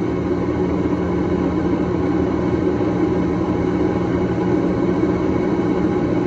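A steady low mechanical drone with a constant hum, unchanging throughout.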